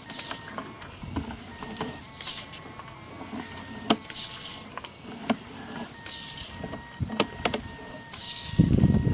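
Sewer inspection camera push cable being fed into the line: a hiss about every two seconds with scattered clicks and knocks over a faint steady whine, and a louder low rumble near the end.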